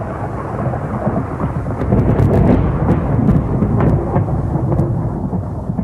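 Thunder rumbling and crackling over a steady hiss of rain, with sharp cracks and the loudest rumble about two to three and a half seconds in.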